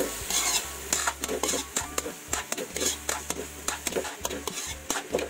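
Spatula scraping and clacking against a wok as broccoli and red bell pepper are tossed in a thick stir-fry sauce, with sizzling underneath. The clacks come irregularly, several a second.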